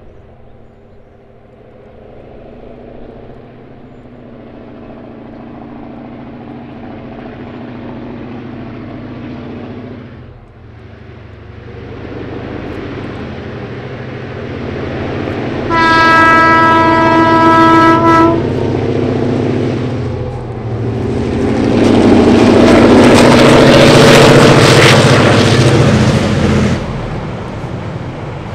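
Two DA class diesel-electric locomotives, EMD two-stroke diesels, approach under power, their engine sound building. One long horn blast sounds a little past halfway. The engines are loudest as the locomotives pass close by, then the rolling of the carriages follows.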